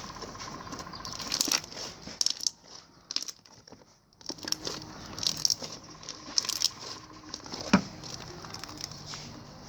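Hands pressing and squishing thick glossy slime packed with foam chunks and foam beads, giving irregular crackly clicks and small bubble pops. There is a brief lull about three seconds in, and one sharp, loud pop later on.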